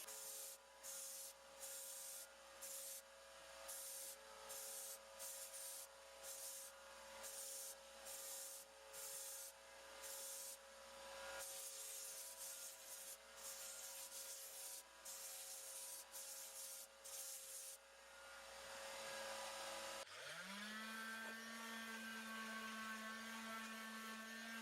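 Rhythmic hand sanding of a freshly welded steel fork leg, quick back-and-forth scraping strokes about two a second. About 20 s in, a power tool's motor spins up, rising in pitch, and settles into a steady whine, as in grinding the weld.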